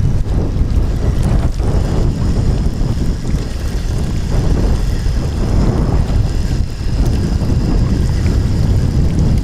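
Wind buffeting an action camera's microphone: a loud, steady, low rumble with gusty swells.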